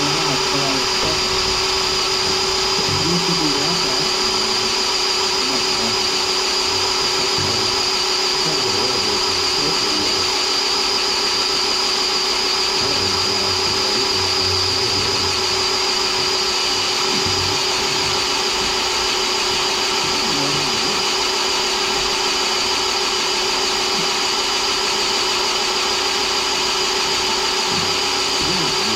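Cordless drill running steadily at one constant speed, boring a hole through a water pipe for a tapping saddle.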